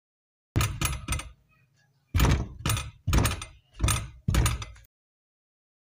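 A series of about eight sharp thumps, each starting suddenly and dying away fast: three in quick succession, then five more spaced about half a second apart.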